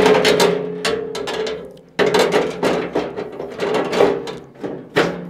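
Steel front shelf of a pellet grill being fitted onto the rails under the grill, giving a run of irregular knocks and clanks of metal on metal.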